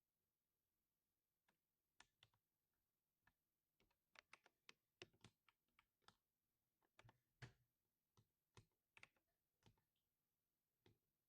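Faint, irregular keystrokes on a mechanical keyboard with lubed linear switches. A few scattered presses come first, then a quicker run of keystrokes in the middle, then a few spaced presses again.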